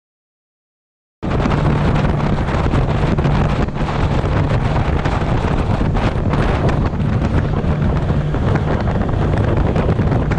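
Wind buffeting the microphone of a boat running at speed, with a steady low drone from its twin Suzuki outboard motors and the rush of spray underneath. It cuts in suddenly about a second in, after silence.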